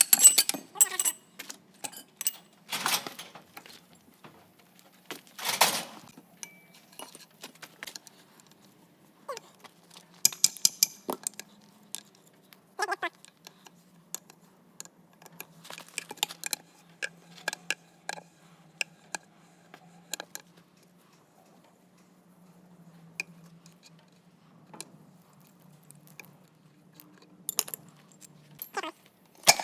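Metal hand tools and steel axle parts clinking and knocking irregularly during differential work, with a couple of short scraping bursts in the first few seconds.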